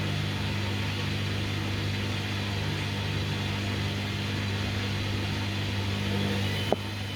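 Hoover washing machine's motor humming steadily as it struggles to spin the drum up to speed. A sharp click near the end, after which part of the hum drops away.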